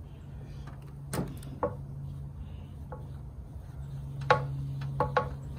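Cleaning the painted steel side of a school bus with a spray bottle and hand: several short, sharp clicks and taps over a steady low hum.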